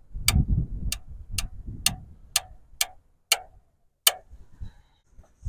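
Farmall Cub's four-cylinder engine being cranked over for an ignition check, with sharp regular snaps about twice a second over a low rumble. The rumble stops about three seconds in, and the snaps slow and die away after it.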